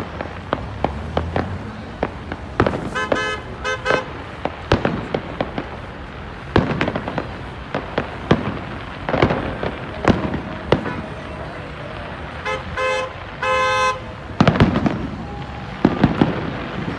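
Fireworks display: a rapid, irregular series of sharp bangs and crackling bursts. A horn-like tone sounds in short toots a few seconds in and again about two-thirds of the way through.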